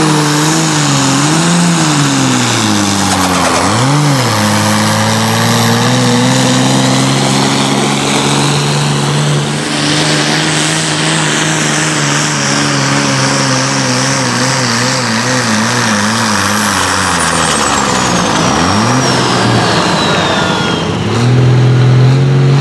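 Diesel pulling tractor at full throttle, dragging a weight sled. Its engine note dips and recovers under load, with a high turbo whistle above it. Near the end the revs and the whistle fall away as the pull ends, and another tractor's engine comes in louder.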